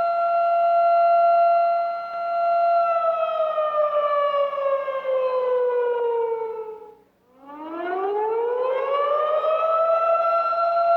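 Tornado warning siren sounding a steady wail. About three seconds in its pitch winds slowly down for roughly four seconds and the sound almost dies away. It then winds back up to full pitch and holds steady again.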